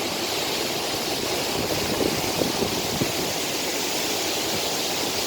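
Steady rushing of the Krimml Waterfalls' falling water, an even, unbroken wash of noise.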